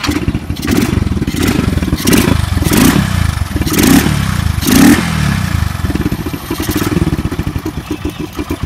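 Honda Twister's 110cc single-cylinder four-stroke engine running with its air filter removed. The throttle is blipped about five times in quick surges, then the engine settles into a steady idle near the end.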